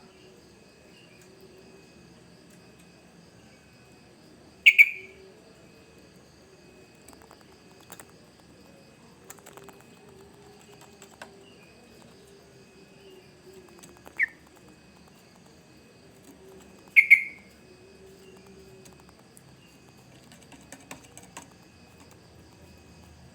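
Yellow-vented bulbul (trucukan) giving three short, loud calls, about five seconds in, at fourteen seconds and at seventeen seconds, over a faint steady insect buzz.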